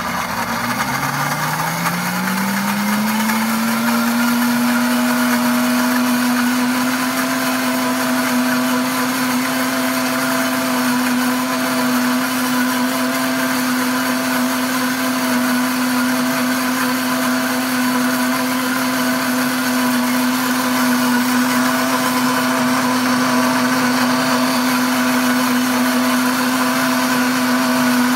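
Pampered Chef Deluxe blender motor spinning up with a rising whine over the first few seconds, then running steadily at one pitch as it blends thick ground hazelnut paste with cocoa into a chocolate spread.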